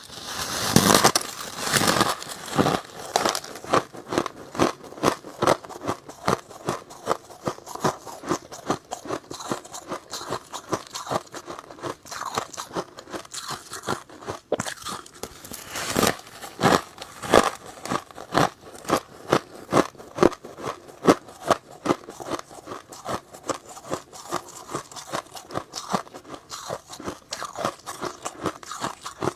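Close-miked crunching of powdery freezer frost being bitten and chewed, a run of crackly crunches a few a second, louder in the opening seconds and again about midway.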